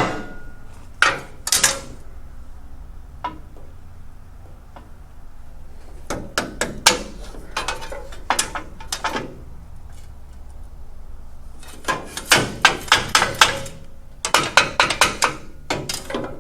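Sharp metal knocks and taps on steel sheet-metal panels, in quick runs of several a second with pauses between, as the loose engine-bay pieces are knocked into square.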